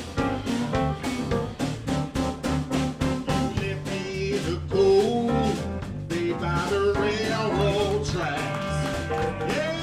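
A live blues band playing an instrumental passage, with a steady drum beat under bass and keys. From about four seconds in, a lead line of bending, sliding notes comes in over the band.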